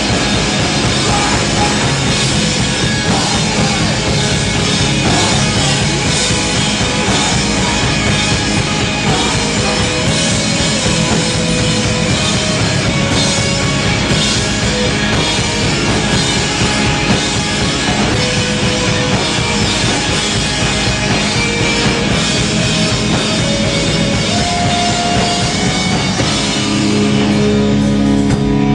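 Hardcore punk band playing live at full volume, with electric guitars, bass and a drum kit. Near the end the drums stop and a held chord rings on.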